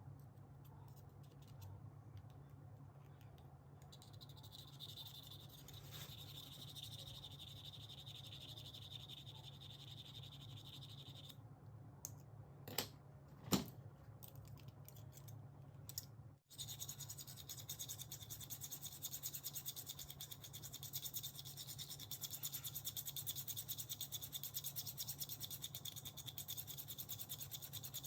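Sewing scissors being sharpened: quick, repeated high-pitched scratching strokes of the blade against an abrasive, in two runs with a couple of sharp clicks between them, the second run faster and denser.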